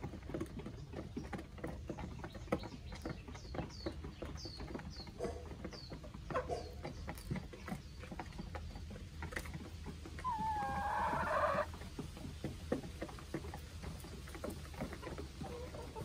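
Chickens pecking feed from metal pans, a steady patter of beak taps. A run of quick high chirps comes a few seconds in, and about ten seconds in a chicken gives one loud drawn-out call that rises in pitch and holds for over a second.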